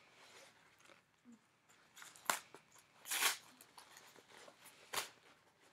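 Brown paper package being opened by hand: paper rustling and crackling, with a sharp snap a little after two seconds, a short tearing burst about three seconds in, and another sharp snap about five seconds in.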